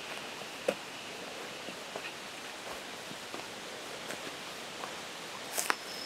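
Footsteps on a leaf-strewn dirt forest trail: faint, irregular soft crunches and rustles over a steady hiss, with a louder rustle near the end.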